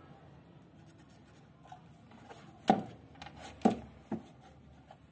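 Handling knocks on a wooden workbench as the angle grinder's field stator is picked up and turned: two sharp knocks about a second apart, a lighter knock just after, and small clicks and rubs from the handling.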